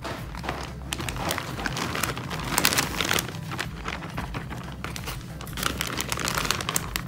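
Plastic zip-top bag crinkling and rustling as shredded cooked chicken is shaken out of it.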